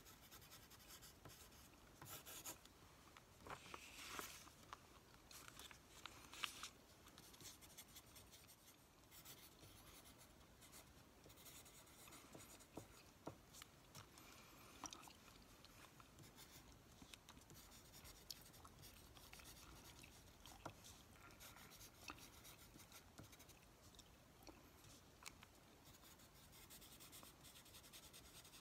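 Faint scratching of a pen writing on a small slip of paper, in short irregular strokes with occasional light ticks, as a grocery list is written out.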